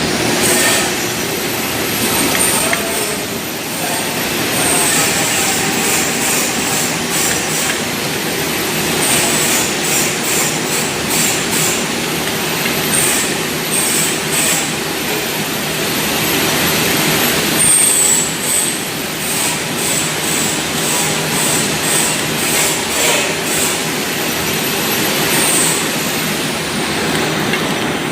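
Three-side-seal packaging machine running: steady mechanical clatter with repeated short, high-pitched sounds and clicks as it cycles.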